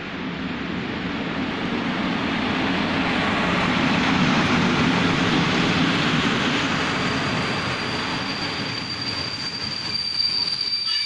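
PKP Intercity TLK passenger train arriving at a station platform, its carriages rolling past with a broad rumbling wheel noise that swells and then eases as it slows. About ten seconds in, a thin, steady, high-pitched brake squeal starts.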